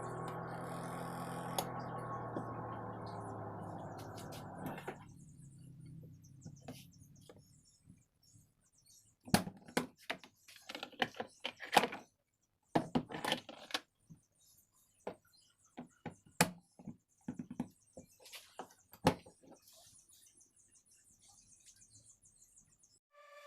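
Twin-tub washing machine motor running with a steady low hum that winds down and stops in the first several seconds, followed by a scattered series of sharp clicks and knocks.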